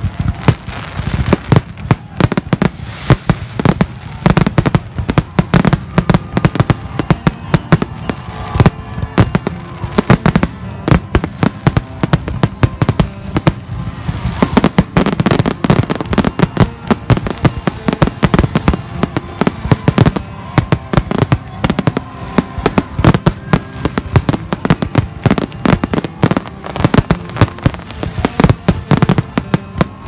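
Fireworks going off in a dense, continuous run of sharp crackles and bangs, several a second.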